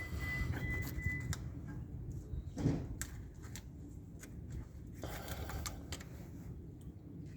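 Scattered light clicks and ticks of channel-lock pliers gripping and turning a screw-type brake caliper piston, winding it back into the caliper, with one duller knock a little under three seconds in.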